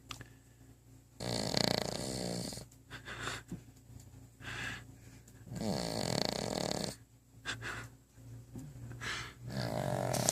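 A sleeping dog snoring: three loud snores about four seconds apart, each over a second long, with softer breaths between them.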